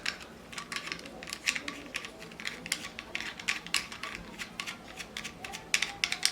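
Irregular small clicks and taps of a tripod's phone holder clamp being handled and fitted, several a second, with a cluster of louder clicks near the end.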